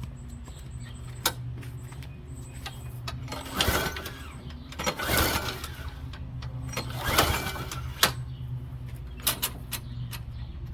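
Recoil starter cord of a 150 cc Briggs & Stratton lawn mower engine pulled three times, each pull a short whirring crank that never catches. The engine will not start: it has sat unused for years with an empty gas tank.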